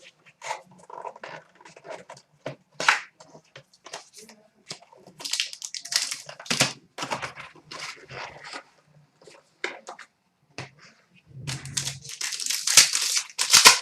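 Plastic wrapping on a box and pack of sports cards being crinkled and torn open: a string of short crackling rustles, then a longer, louder rip near the end.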